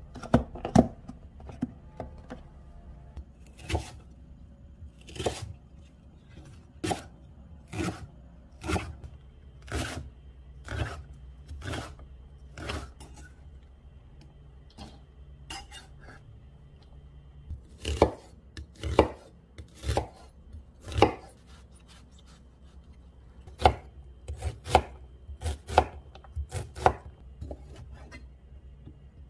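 Chef's knife chopping on a bamboo cutting board, first cutting green onion and then slicing sausages: a long series of separate knocks, roughly one a second, with quicker runs of strokes in places.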